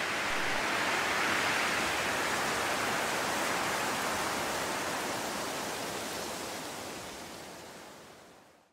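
A steady, even rushing noise with no tones or beat, fading away over the last couple of seconds.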